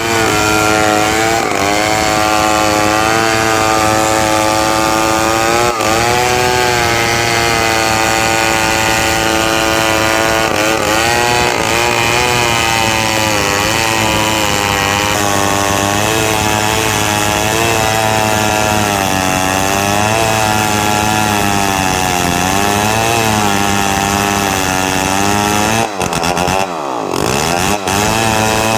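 Two-stroke chainsaw running at high revs while cutting timber, its engine pitch wavering up and down as the chain bites and eases. Near the end the sound briefly breaks and the pitch drops and swoops back up.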